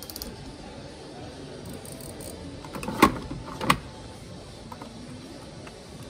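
Two sharp knocks, about two-thirds of a second apart, a little past the middle, over a steady background hum.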